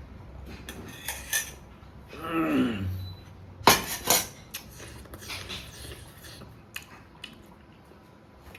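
Eating utensils clinking and knocking against a bowl, with two sharp loud knocks about four seconds in and lighter clicks around them. A short falling-pitch vocal sound comes from the eater a little before the knocks.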